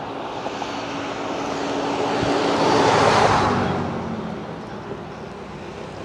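A road vehicle passing by at speed, its engine and tyre noise swelling to a peak about three seconds in and fading away, the hum dropping slightly in pitch as it goes past.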